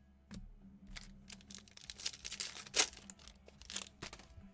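Foil wrapper of a Panini Mosaic football card pack crinkling and tearing as it is ripped open, in irregular rustles with a sharp crackle in the middle.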